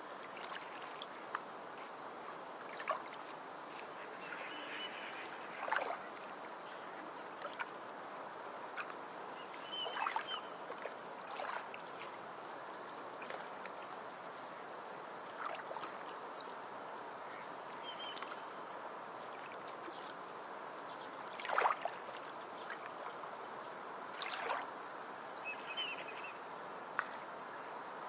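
Small waves lapping at a beach shoreline: a steady wash of water broken by short splashes every few seconds, the strongest about two-thirds of the way through.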